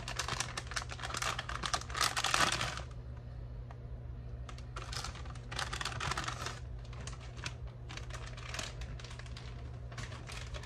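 Plastic bag of shredded cheddar crinkling as it is shaken out over a glass baking dish, in quick runs of small clicks, densest in the first three seconds and then in sparser clusters, over a steady low hum.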